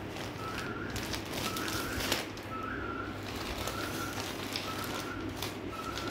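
Kraft-paper mailer bags crinkling and rustling as they are handled, while a bird repeats one short note about once a second in the background.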